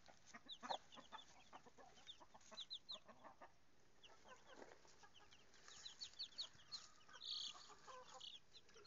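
Days-old chicks peeping faintly: many short, high, downward-sliding cheeps scattered throughout.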